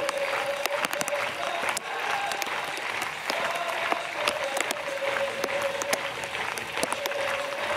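Stadium crowd clapping steadily, a dense crackle of many hands, sustained through play.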